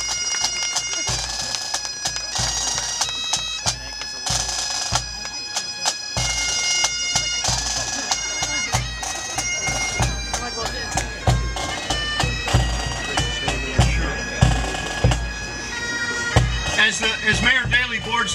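Pipe band playing a tune: bagpipes in steady, stepping notes over regular bass drum beats.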